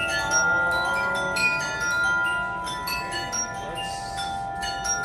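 Bell-like chimes sounding irregularly at many different pitches, each note ringing on over a few long held tones, with no steady beat.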